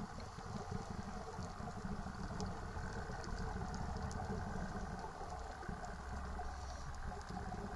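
Underwater scuba ambience: a steady low rumble of regulator breathing and exhaust bubbles, with scattered faint clicks.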